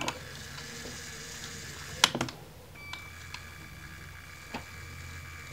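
Lego Power Functions motor driving the crane's winch, a faint steady whir of the motor and plastic gears winding the hook up on its string, with two short clicks, one about two seconds in and one near the end.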